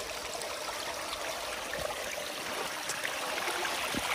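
A small stream of water trickling steadily, with a few faint clicks.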